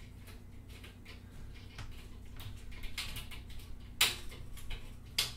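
Blinds being closed by hand: scattered light clicks and rattles, with a sharper clack about four seconds in and another just before the end.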